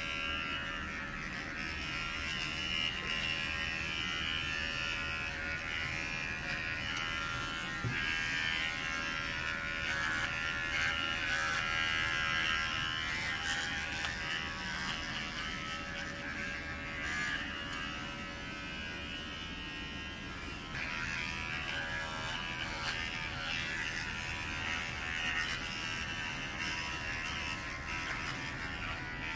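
Cordless electric pet clippers buzzing steadily as they cut through a dog's long white coat, the buzz changing a little in strength at times.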